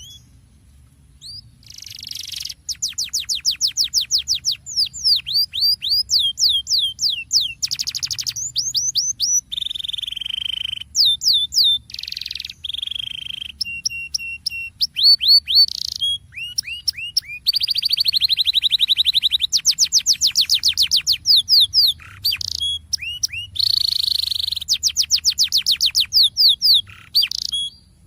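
Canary singing a long rolling song: fast trills of repeated down-sweeping notes alternating with buzzy chattering passages, with brief breaks between phrases. It is the kind of full rolling song played as a lure to set quieter canaries singing.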